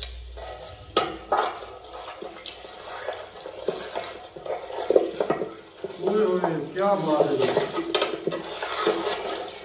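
Hands spreading and turning chopped raw mutton on a large metal tray: scattered clicks and clatters of meat and fingers against the metal. A voice speaks briefly about six seconds in.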